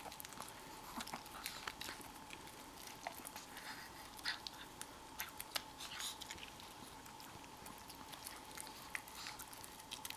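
Chihuahua licking and nibbling cupcake frosting: faint, irregular wet smacks and clicks of its tongue and mouth.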